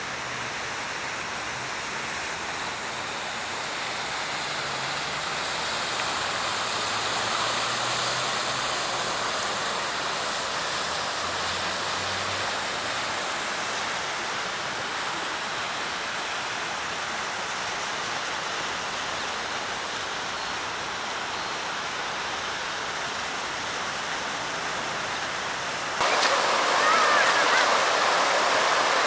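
Floodwater in a normally dry desert river rushing steadily, an even hiss of moving water that jumps louder near the end.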